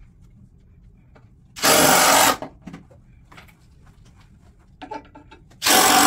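Cordless power driver driving screws into a wooden beam: two short whirring bursts, each under a second, about four seconds apart.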